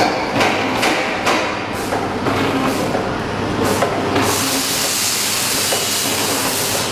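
Liquid jelly packaging machine running: sharp mechanical strokes about twice a second, then a steady hiss takes over about four seconds in, over a low hum.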